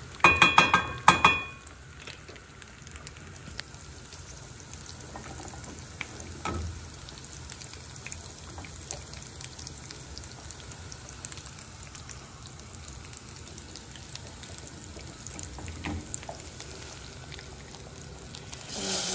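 A spoon clanking and ringing against the pot as the thick black-cabbage and cornmeal soup is stirred, loudest in the first second. Then a soft steady hiss of the soup with a few light knocks of the spoon.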